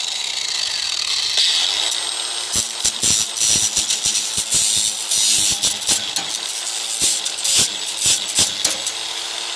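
Ryobi cordless angle grinder grinding steel at a truck tailgate hinge: a high motor whine with rattling chatter as the disc bites the metal, the pitch sagging and climbing back several times as the load changes. It is cutting away a leftover piece of welded-on metal.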